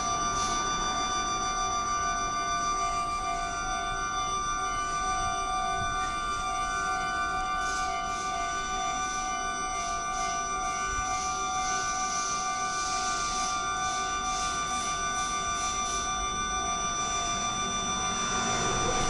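Electronic Japanese railway level-crossing alarm ringing steadily, a continuous repeating warning tone meaning the crossing is closed for a train.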